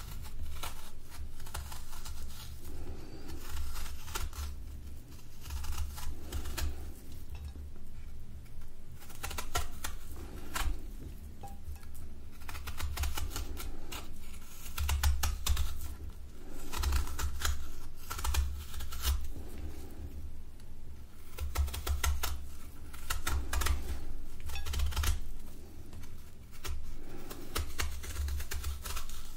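Kitchen knife peeling the skin off a whole yellow fruit, close up: crisp, crackly strokes of the blade through peel and flesh, repeating every second or two, with soft thuds from the fruit being handled.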